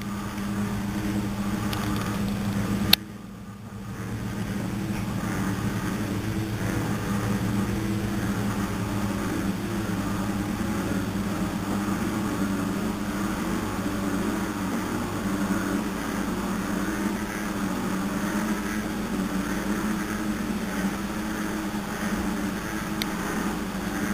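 Frogs calling in a dense, continuous chorus with a steady pulsing drone. A single sharp click comes about three seconds in.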